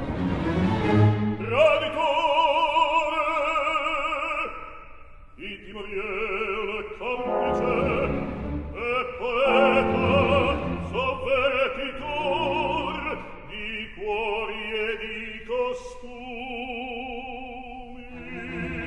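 Operatic baritone singing with wide vibrato over an orchestra, in long phrases with a short break about four and a half seconds in.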